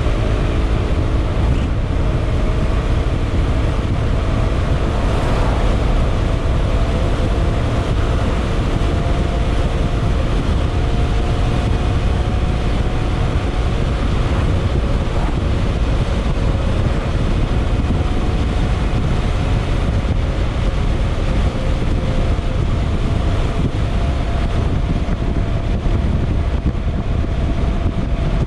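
Yamaha XMAX scooter's single-cylinder engine and exhaust running at a steady cruising speed, with a steady engine note under heavy wind buffeting on the microphone.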